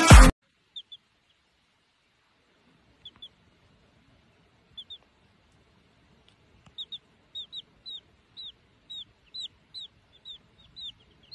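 Baby chick peeping: short, high cheeps that fall in pitch, a few scattered pairs at first, then a run of about two a second from about seven seconds in. Music cuts off at the very start.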